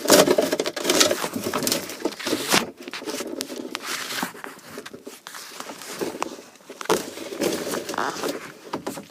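Handling noise from clearing out the cabinet under a kitchen sink: irregular rustling, crinkling and short knocks of items and bags being moved.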